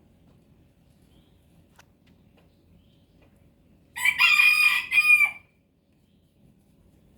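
A rooster crowing once, about four seconds in: a loud call of about a second and a half, with a short break before its last part.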